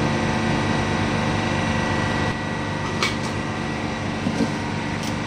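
Steady hum of a ship's machinery, a low drone with a constant thin whine above it, with a light click about three seconds in.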